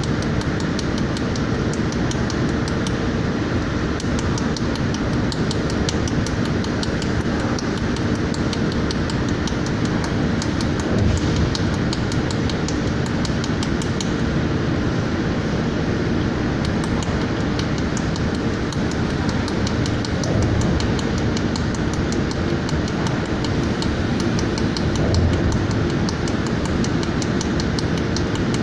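Pulsed jewelry laser welding machine welding thin brass. Rapid sharp clicks come from the laser pulses, over the machine's steady hum and fan rush. The clicks thin out briefly about halfway through.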